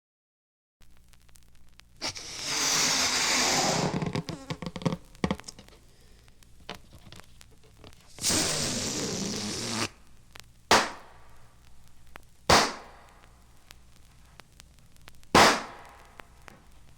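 A sound effect: after a second of silence, two loud hissing bursts with crackle, the first about two seconds long, the second shorter, followed by three sharp bangs a couple of seconds apart, each with a short ringing tail.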